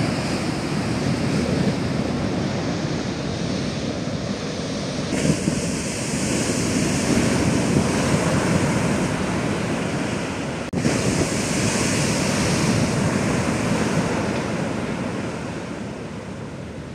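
Heavy shore-break surf crashing and rushing, a dense roar of breaking whitewater with wind buffeting the microphone. The sound changes abruptly twice, about five and ten and a half seconds in, and fades slowly near the end.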